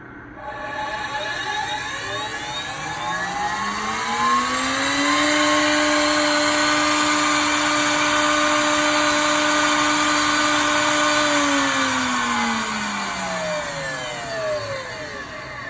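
The router's 7 hp dual-ended Perske spindle motor spinning up with a rising whine, running at a steady pitch for about six seconds, then winding down with a falling whine, over a steady whooshing hiss.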